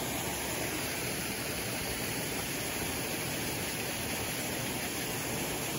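Steady rush of water from a pool's rock waterfall spilling into the pool.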